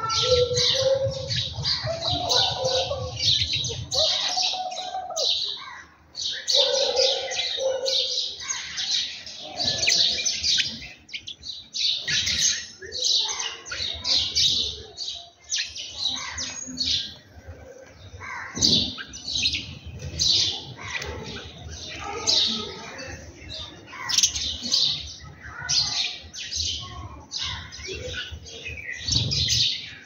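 Small birds chirping busily, many short high notes overlapping almost without a break, with some lower, hooting notes in the first several seconds.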